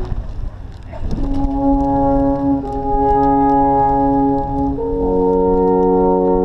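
Three alphorns playing long held notes together in harmony. After a brief break at the very start they come back in about a second in, then change to new notes twice.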